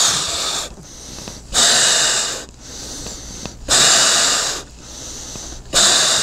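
A person blowing hard through a plastic mouthpiece to inflate a balloon, in four long hissing rushes of breath with short pauses between them for inhaling. No tone from the balloon's membrane yet: this is the inflating stage before the noisemaker is made to sound.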